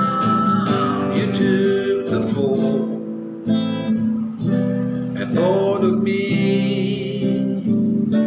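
Slow strummed acoustic guitar accompaniment to a worship song, with a man's singing voice held over it in places.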